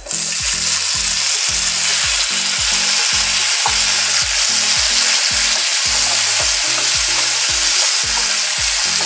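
Chopped tomatoes dropped into hot ghee with coriander and cumin seeds, sizzling loudly. The sizzle starts suddenly as they go in and stays steady while they are stirred with a wooden spatula.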